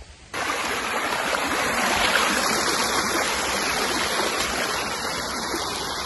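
Creek water rushing over rocks: a steady, even rush that starts abruptly just after the start.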